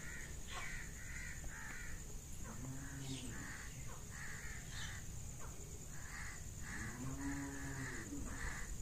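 Crows cawing over and over, about two to three caws a second in runs. Two short low calls come in between, one about three seconds in and one near the end.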